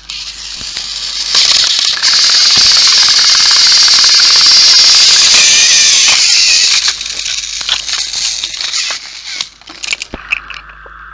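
Two battery-powered toy train engines running their motors and grinding against each other head to head, a loud, dense whirring buzz that builds over the first two seconds. About seven seconds in it drops to a softer rattle with scattered clicks.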